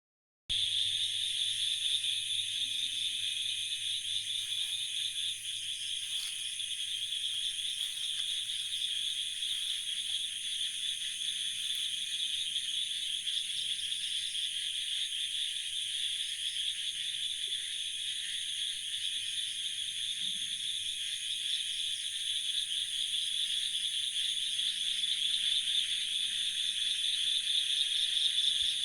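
Night chorus of insects and frogs: a dense, steady, high-pitched shrilling with no pauses.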